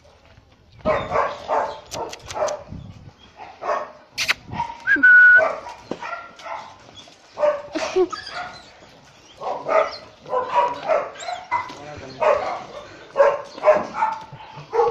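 Several dogs barking over and over, starting about a second in.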